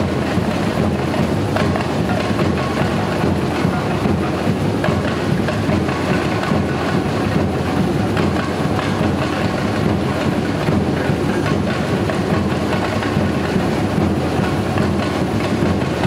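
Brazilian samba bateria playing a steady, dense groove: surdo bass drums, snare and repique drums, and metal frame shakers (chocalhos) played together.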